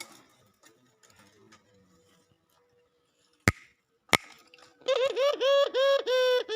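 A bird's laughing call: a quick run of pitched notes, each dipping and then levelling off, starting near the end after two sharp clicks.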